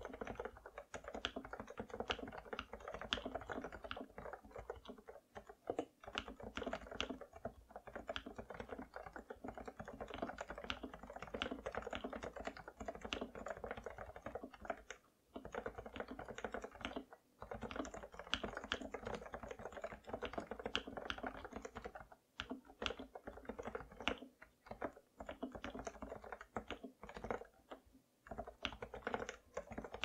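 Continuous typing on a Realforce 87U Topre keyboard, a rapid stream of keystrokes from its rubber-dome capacitive switches. The switches are lubed with Krytox 205g0 and the keycaps dampened with X-rings to silence them. The typing halts briefly a few times past the midpoint.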